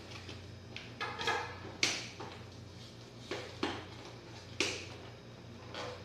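Hands working at a long cardboard box on a glass tabletop to open it: rustling and a few sharp knocks and taps of cardboard, the loudest about two seconds in and near five seconds.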